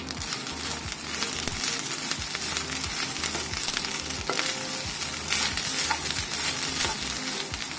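A wooden spatula stirring and turning cooked rice into fried grated coconut in a hot nonstick pan, scraping and tapping against the pan over a steady sizzle.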